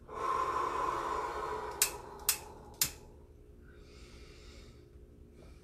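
A person smoking a ceremonial pipe: a long breathy blow for the first three seconds, three sharp clicks about half a second apart near its end, then soft puffs drawn on the pipe.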